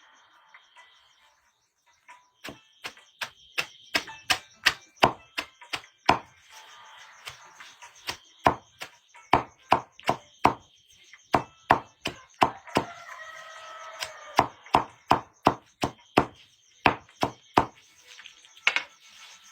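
Rapid chopping: a blade striking wood over and over, about two to three blows a second with brief pauses, starting about two seconds in.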